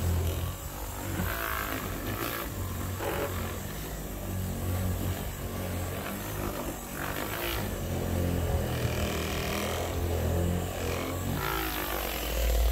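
Corded electric orbital buffer running with a low motor hum that dips a few times, used to polish the painted hood of a riding mower.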